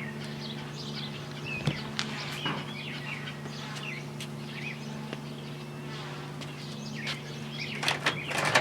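Microwave oven running with a steady hum while a cable modem burns inside it, with scattered sharp crackles and pops from the burning plastic that come thicker near the end.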